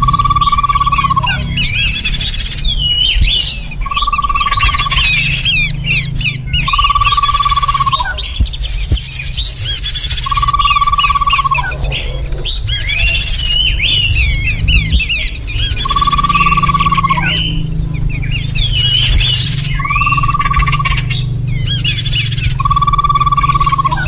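Bird-lure recording of small babblers calling: a clear, level whistle held for about a second and repeated seven times, over dense chattering and twittering calls. A steady low hum runs underneath.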